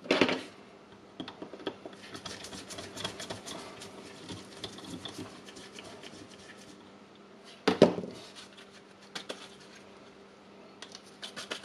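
Small clicks, scratches and ticks of hands handling the plastic housing and circuit board of an opened Milwaukee M18 battery pack, with one louder knock about two-thirds of the way through.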